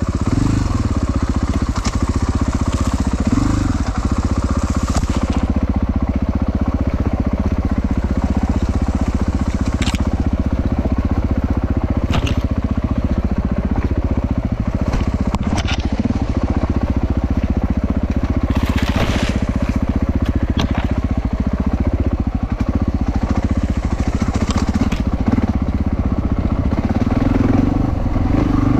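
A 450 four-stroke enduro motorcycle engine running at a steady, low pace on a rocky trail. Stones crunch under the tyres, with scattered sharp clicks of rocks being struck.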